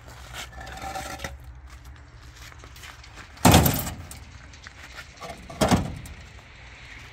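Hollow concrete blocks being set down on a pickup truck's tailgate and stacked: two loud knocks about two seconds apart, with lighter clatter and scraping of block against block before them.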